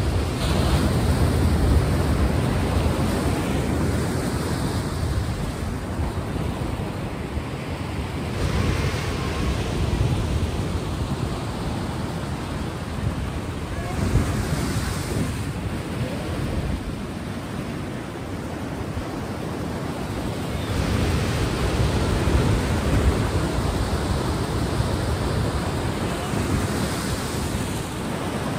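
Ocean surf: a continuous wash of waves that swells louder every several seconds as each wave breaks.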